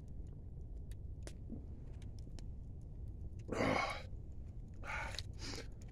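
A person's breathy exhale, like an "ahh" after a swig of beer, about three and a half seconds in, followed by two shorter breaths near the end, over a steady low rumble with scattered faint clicks.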